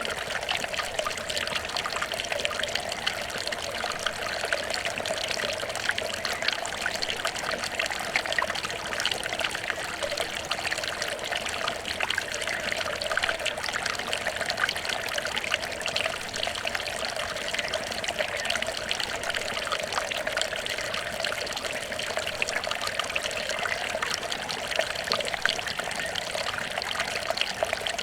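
Water trickling steadily, a continuous babble with fine splashing detail.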